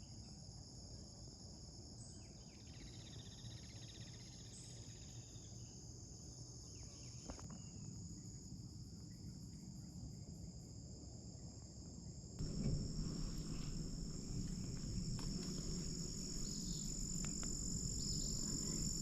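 Steady, high-pitched chorus of crickets and other insects in the woods. About twelve seconds in, a low rumble comes in underneath and stays.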